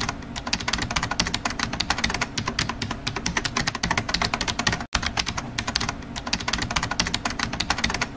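Fast, continuous typing on a keyboard, a dense run of clicks with a momentary break about five seconds in.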